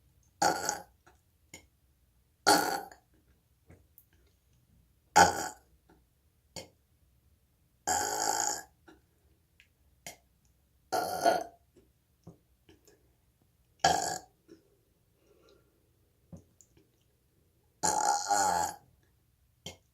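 A young woman burping on command: seven loud burps a few seconds apart, the fourth and the last drawn out longer than the others, with faint short clicks in between.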